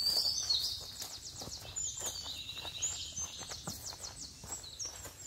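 Birds calling with high chirps and two fast trills, over footsteps on a rocky dirt trail.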